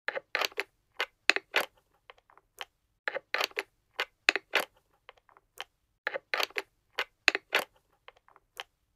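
Sharp plastic clicks and knocks as the red plastic parts of a miniature toy barbecue grill are handled and its legs pushed into the base. They come in quick clusters of two to four about every second, with short pauses between.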